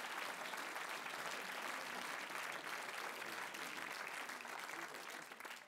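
Audience applause, a steady patter of many hands clapping at low level, fading out near the end.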